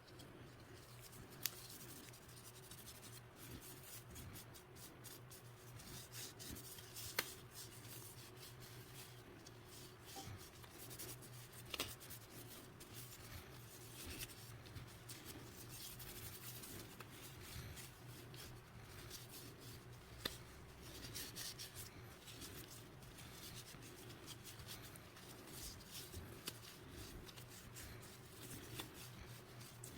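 Faint rubbing and handling sounds, scattered soft scrapes with a few light clicks, over a low steady hum.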